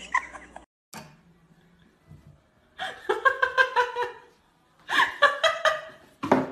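A person laughing in two runs of quick, high-pitched bursts, each about a second long, with a short thump near the end.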